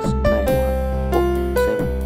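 Keyboard melody played from the digits of pi, each digit sounding its own note (1 as C up to 0 as the E an octave and more above). Single held notes change every fraction of a second over a steady low bass.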